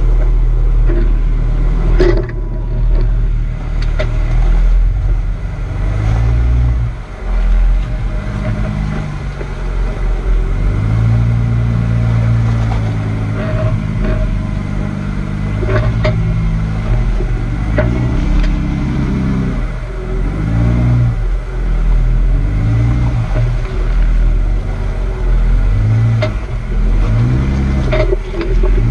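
Jeep Wrangler's engine revving in repeated surges as it crawls over rock ledges, rising and falling in pitch, with a few sharp knocks.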